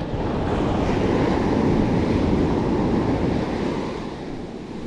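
Shallow surf washing up the sand in a foamy rush, with wind buffeting the microphone. The rush swells for about three seconds and then eases.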